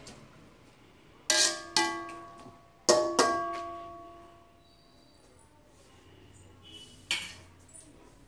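Metal spoon knocking against a large aluminium kadai, two quick pairs of knocks and one more near the end; each knock leaves the pot ringing with a clear tone that dies away over about a second.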